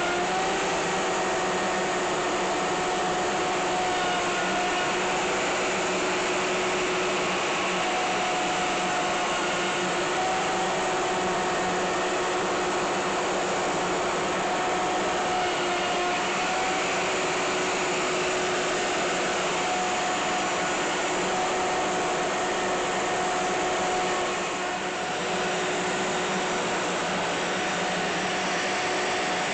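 Router on a Woodpeckers slab flattening mill running steadily with a high whine, flattening a burr oak slab. The level dips briefly about 24 seconds in.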